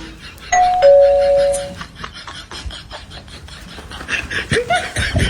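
Two-note chime, ding-dong, a higher tone followed by a lower one, held for about a second, typical of an electronic doorbell. Voices and laughter come in near the end.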